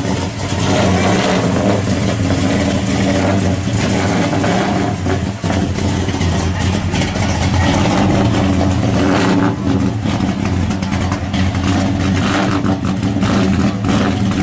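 1955 Chevrolet gasser's engine running loudly with a deep, steady exhaust rumble as the car rolls slowly past.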